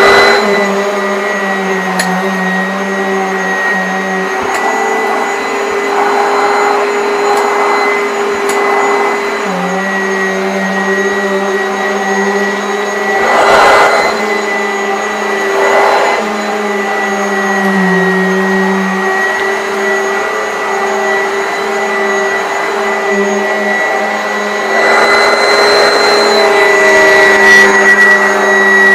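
Garry GL100 upright vacuum cleaner running steadily with a high whine, with two brief noisy surges about halfway through; it gets a little louder in the last few seconds.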